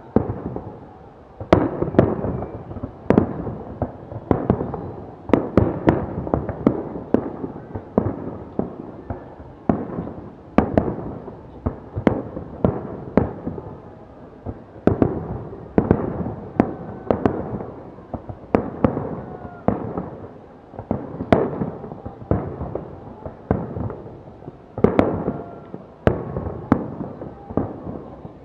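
Fireworks display: a dense, uneven string of bangs, often several a second, each echoing briefly.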